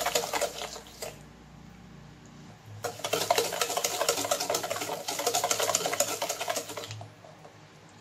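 Wire whisk beating butter and sugar in a stainless steel bowl: fast, rattling strokes of the wires against the metal. The whisking stops about a second in, resumes after a pause of nearly two seconds, and stops again near the end.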